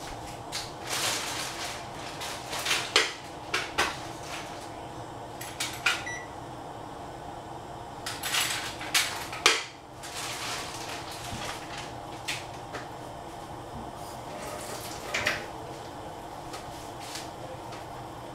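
Covered stainless-steel pan of tomato-and-egg soup cooking on a gas burner: irregular clicks and crackles from the pan, coming in clusters, over a steady low hum.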